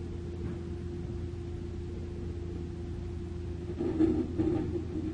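SANY mini excavator's diesel engine running steadily with a level droning tone, and about four seconds in a short run of louder rough scrapes and knocks as the bucket works broken rubble on the ground.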